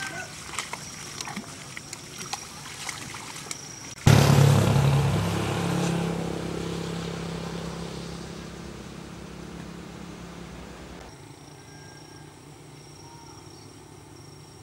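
A low engine rumble that starts suddenly about four seconds in, loudest at once and fading away over several seconds. Quieter outdoor sound before and after it.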